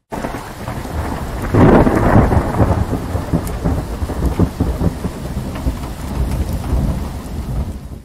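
Rain and rolling thunder, cutting in suddenly and swelling to a crackling peak about a second and a half in, then rumbling on steadily before fading out at the end.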